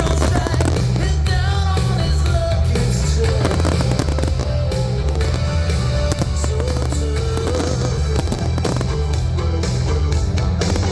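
Fireworks cracking and banging repeatedly over loud music with a singing voice and a steady bass line.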